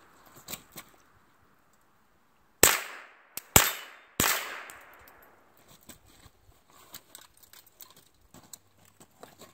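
Three rifle shots from an AR-style rifle, about two to three seconds in and spaced roughly half a second to a second apart, each trailing off in echo. Light clicks and knocks follow.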